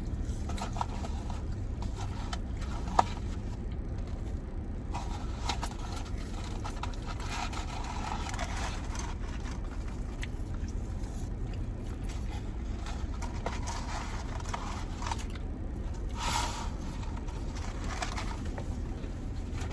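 Eating sounds: chewing and rustling of fast-food wrappers and packaging over a steady low rumble, with one sharp click about three seconds in.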